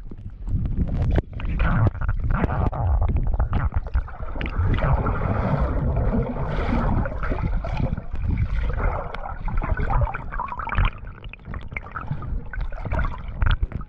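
Muffled underwater sloshing and bubbling of water around a swimmer's action camera, with many small knocks and splashes throughout.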